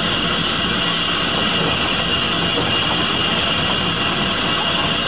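Steady hiss of steam from the Manning Wardle saddle tank steam locomotive 'Sir Berkeley', with no exhaust beat.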